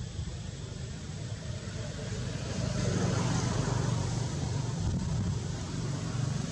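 Outdoor background rumble with a hiss over it, growing louder about two and a half seconds in.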